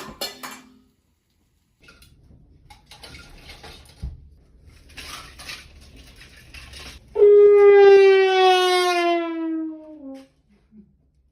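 A comedic brass sound effect, a long trombone-like tone sliding steadily down in pitch for about three seconds, comes in loudly about seven seconds in. Before it there is soft clattering and rustling, like dishes being handled.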